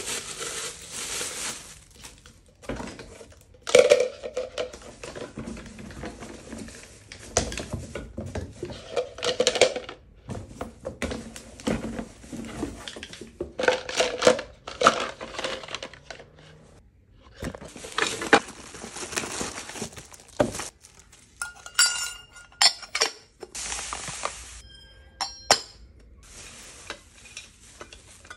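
Plastic wrapping and bubble wrap crinkling and rustling, with kitchen utensils clattering and clinking against each other and their holder. There are brief ringing clinks in the last few seconds.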